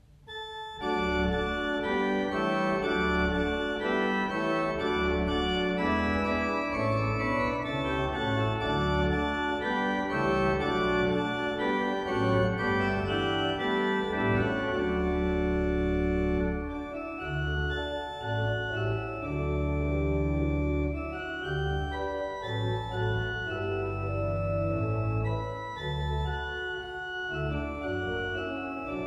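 Organ music: slow sustained chords over deep bass notes, beginning just after a brief pause.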